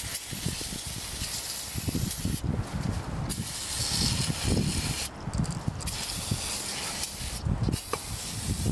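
Aerosol can of non-chlorinated brake cleaner spraying in four long hisses with short breaks between them, the jet washing old gear-oil sludge off the planetary gears of an excavator final drive.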